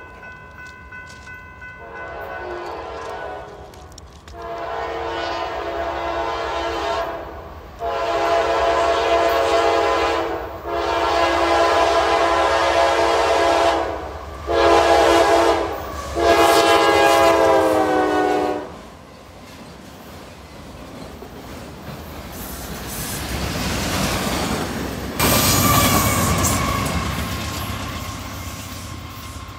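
A Norfolk Southern diesel freight locomotive's air horn sounds several long blasts, then a short one and a final long one, the grade-crossing signal, growing louder as the train approaches. Then the rumble of the locomotive and its rolling cars builds and passes close by, loudest a little before the end.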